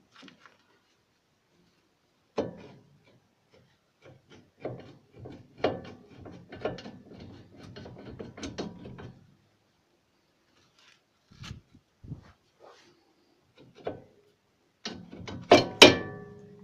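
Metal clicks, knocks and rattling as a Lada Kalina's front brake caliper is worked loose and lifted off its bracket. A denser run of clatter comes in the middle, and the loudest clanks, with a short metallic ring, come near the end.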